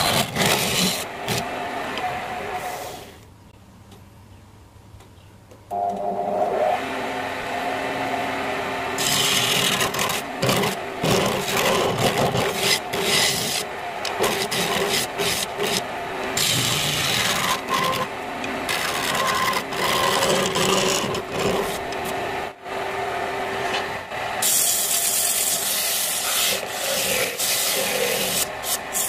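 Homemade wood lathe running while a hand gouge scrapes out the inside of the spinning wooden piece: a loud rasping scrape with frequent small tool catches over the motor's steady hum, with a brief lull a few seconds in. Near the end it turns to the hissier rub of sandpaper against the spinning wood.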